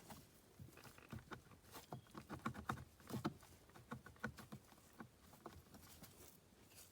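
Faint, irregular light clicks and taps of hands handling wiring cables and plastic connectors.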